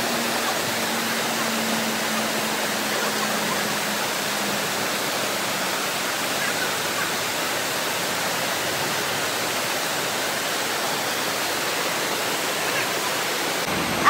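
Shallow waterfall cascading over sloping rock slabs: a steady, even rush of water.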